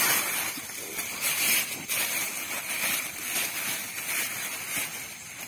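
Black plastic bag rustling and crinkling in irregular bursts as a hand rummages inside it.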